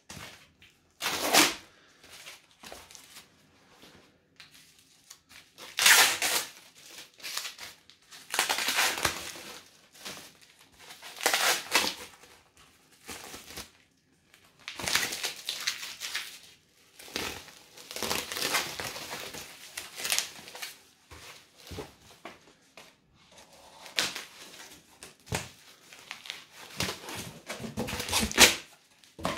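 Cardboard and bubble-wrap packaging being unwrapped by hand: irregular bursts of crinkling and tearing.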